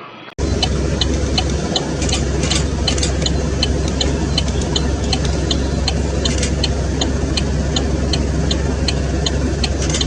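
A steady, loud engine-like rumble with a strong low hum, starting abruptly about half a second in, with sharp ticks sounding over it several times a second.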